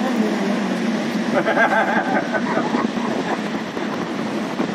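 Steady mechanical running noise of a ropeway cable car cabin travelling along its cable, with faint voices briefly about a second and a half in.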